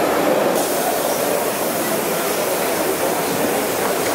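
Gauge 1 live steam model locomotive running with its train on the layout: a steady hiss together with the noise of wheels running on the rails.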